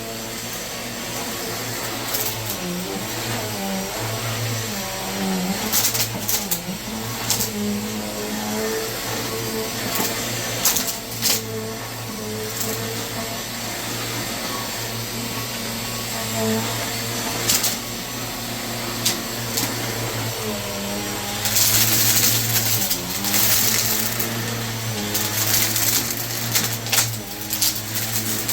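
Vacuum cleaner running steadily with a motor hum under a constant rushing hiss, with scattered sharp clicks. About two-thirds of the way through, the rushing grows louder for a couple of seconds, then settles back.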